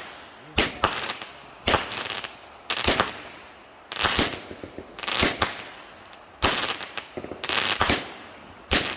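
Consumer multi-shot fireworks cake firing: a cluster of sharp bangs and crackle about once a second, eight times over.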